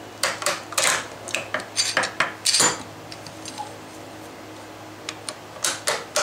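Steel bar clamps being worked on a wooden jig: a string of sharp metallic clicks and clinks as the clamp jaws and handle are loosened and shifted, in two groups with a lull of a couple of seconds between.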